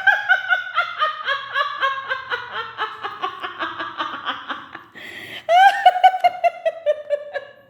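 A high-pitched witch's cackle: a long run of quick, even laughing pulses sliding slowly down in pitch, then a brief break and a second cackle starting about five and a half seconds in.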